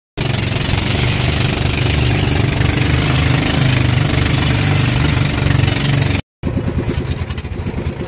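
Small motorboat engine running at speed with a rush of wind and spray, starting abruptly and cutting off about six seconds in. A second stretch of engine sound follows, with a quick pulsing beat.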